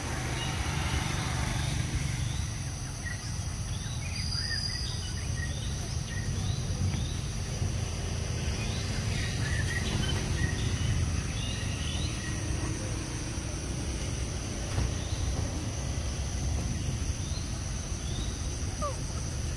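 Outdoor ambience: a steady high insect drone with many short bird chirps scattered through, over a constant low rumble.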